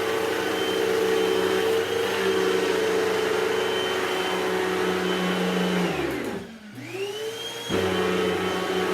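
Hoover Total Home Pet upright vacuum cleaner running at a steady motor hum. About six seconds in the motor winds down almost to a stop, then spins back up with a rising whine and is at full speed again just before eight seconds.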